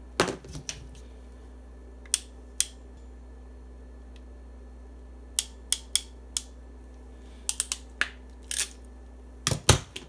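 Scattered sharp clicks and light knocks from a hand crimping tool and a metal BNC crimp connector being worked onto RG58 coax cable. There is a quick run of four clicks around the middle, as the crimper jaws close on the connector, and a louder knock near the end.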